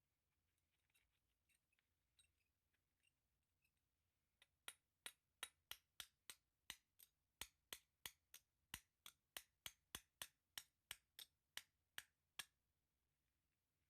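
A run of about two dozen sharp, even taps or clicks, about three a second, starting about four and a half seconds in after a few faint scattered clicks, then stopping.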